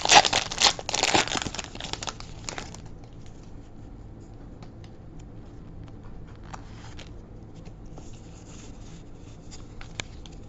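Foil Pokémon booster pack being torn open and crinkled, loud for about the first three seconds, then faint scattered clicks and rustles.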